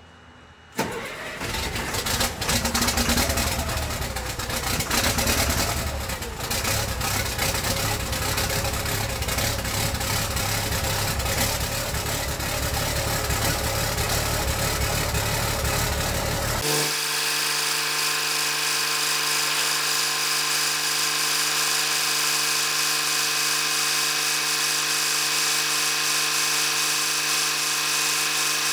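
LMTV's Caterpillar turbo diesel engine starting about a second in and running unevenly at first, then settling. Two-thirds of the way through the sound changes abruptly to a steady idle hum with hiss, the engine running to circulate coolant and push air bubbles out of the cooling system after a thermostat replacement.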